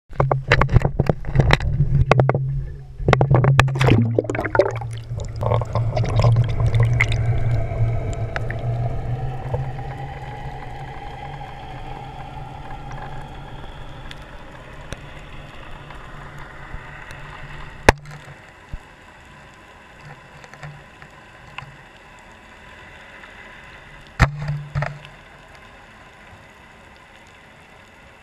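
Waterproof camera housing being handled and knocked about, with a steady low hum, then plunging into the sea. The sound turns into a muffled underwater rush as the camera sinks, fading gradually, with a few sharp knocks on the housing.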